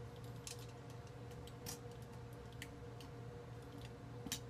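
X-Acto blade working through tough channel catfish skin behind the head: a few faint, irregular clicks and ticks over a steady low hum.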